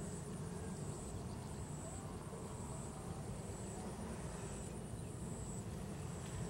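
Field ambience: insects trilling high and thin in pulses about a second long, over a steady low rumble.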